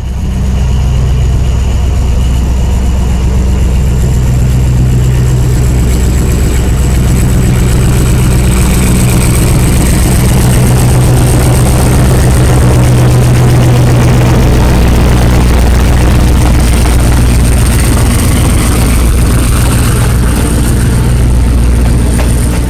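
Diesel-electric locomotive of the State Railway of Thailand hauling a passenger train past close by, its engine a loud, steady deep drone with the noise of the coaches rolling along the track. A faint high whine runs through it.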